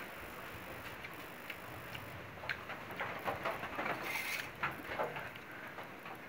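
Eating noises: soft chewing with small clicks and smacks, and faint taps on a steel plate held in the hands. The clicks come thicker from about two seconds in.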